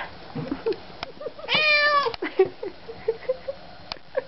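Ginger tabby cat giving one long, drawn-out meow about a second and a half in, with short, quieter chirps before and after it. The cat is meowing over and over, enough that its owner warns it will go hoarse.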